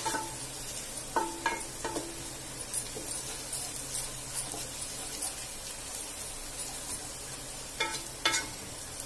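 Sliced onions sizzling in hot oil in a nonstick kadai as a wooden spatula stirs them, with a steady frying hiss. The spatula knocks against the pan a few times, each knock leaving a short ring from the pan: a cluster about a second in and two more near the end. The onions are still at the early frying stage, not yet browned.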